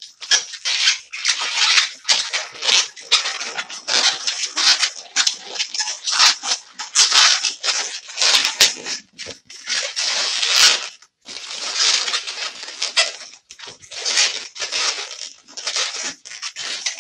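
White 260 latex modelling balloon being rubbed and twisted by hand while forming a double-bubble twist, in short irregular bursts of about one or two a second.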